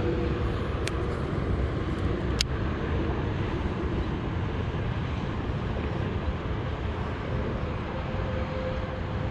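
Steady low outdoor rumble with a faint hum, broken by two sharp clicks about one second and two and a half seconds in.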